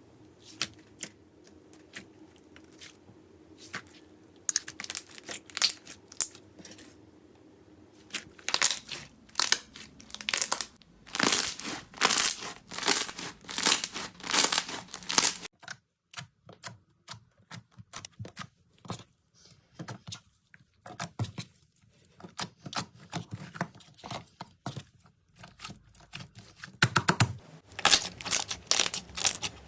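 Slime being pressed and pulled by hand, giving dense runs of crackling, popping clicks. It is faint at first and gets louder about four seconds in. It breaks off in the middle and comes back loud near the end.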